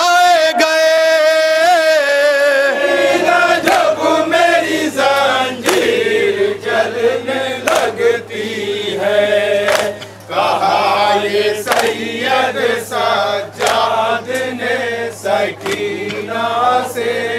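A Shia noha lament: a male reciter at a microphone leads and a group of men chant with him in unison. Hand strikes on the chest (matam) land about every two seconds.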